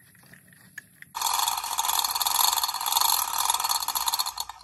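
Hand-chain hoist rattling steadily as its chain is pulled to lower a giant pumpkin onto a pallet. It starts about a second in after a few light clicks and stops just before the end.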